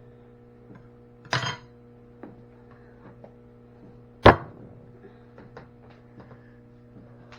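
Handling noises: a brief scrape about a second in, then a single sharp knock a few seconds later, followed by a few faint clicks, over a steady low hum.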